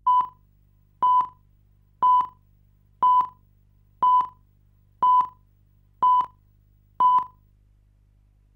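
Countdown leader beeps on a videotape: eight short beeps at the same pitch, one each second, counting down over colour bars. The beeps stop about a second and a half before the end, leaving a faint low hum.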